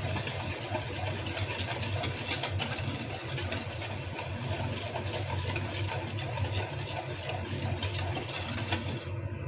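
Wire whisk beating quickly in a stainless steel bowl of liquid mixture: a fast, continuous metallic rattle and clatter of the wires against the bowl, which stops suddenly near the end. A steady low hum runs underneath.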